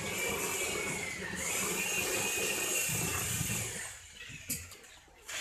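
Handheld power tool's motor running at a steady high whine on plaster, its pitch sagging briefly about a second in as it is pressed, then switched off and winding down after about three and a half seconds. A sharp click follows near the end.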